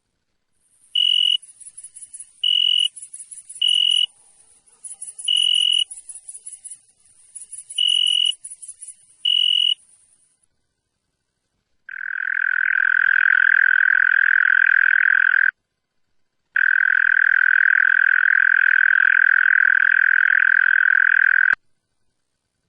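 Night-singing animals. First comes a very high, fast-pulsed insect buzz, with six short, piercing notes over it. After a pause, a loud, even churring trill follows in two long bouts, the first about three and a half seconds and the second about five, in the manner of a European mole cricket's song.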